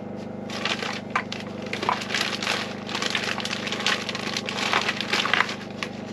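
Dried oregano and basil being shaken and crumbled onto a dish: irregular crinkly rustling, over a steady low hum.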